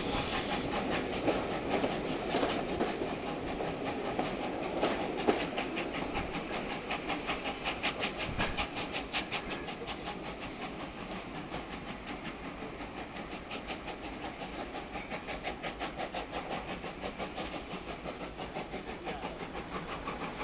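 Passenger coaches rolling over the rail joints, a regular clickety-clack of wheel clicks that slowly fades as the train draws away.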